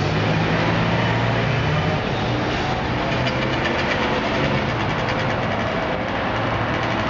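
Car engines idling and creeping in stop-and-go street traffic: a steady low engine hum under road noise, with no hard revving.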